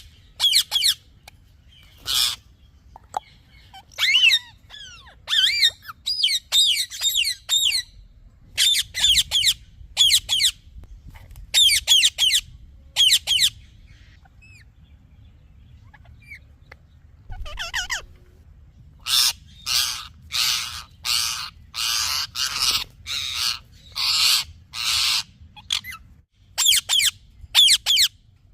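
Parrot chirping and squawking in short groups of quick, high calls with pauses between. About two-thirds of the way in comes a run of harsher squawks, about two a second.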